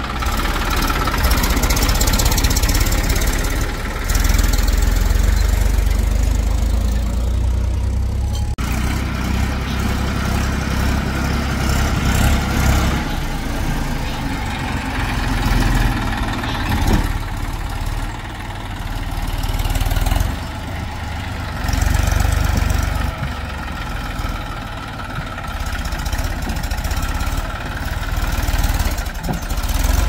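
Diesel engines of a JCB backhoe loader and farm tractors running, the level rising and falling as the machines work. The sound shifts abruptly about 4 and 8.5 seconds in.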